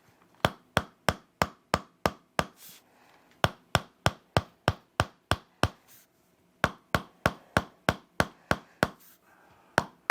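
Toksen massage: a wooden mallet tapping a wooden chisel held against the body. Sharp wooden taps come about three a second, in runs of seven or eight with short pauses between.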